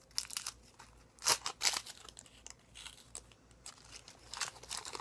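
Dum Dums lollipop wrapper crinkling as it is handled and peeled off the candy, in short irregular bursts, loudest about a second and a half in.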